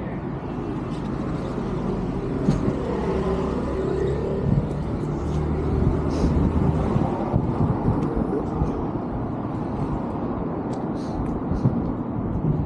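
Road traffic: motor vehicles running by with a steady low engine rumble.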